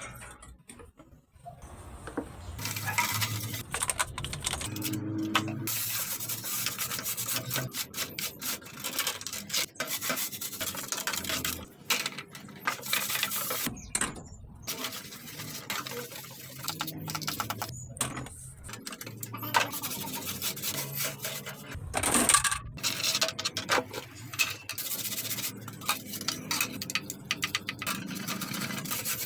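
Rubbing and scrubbing with many light clicks and clatters of hard parts as a dusty electric fan is cleaned, with one louder knock about three-quarters through.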